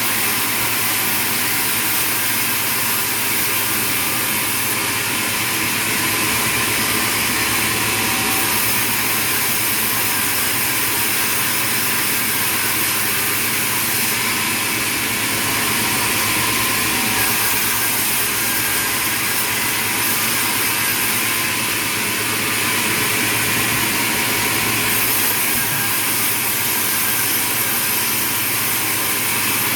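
Sawmill machinery running: a loud, steady mechanical noise that holds even throughout, with no distinct cuts or pauses.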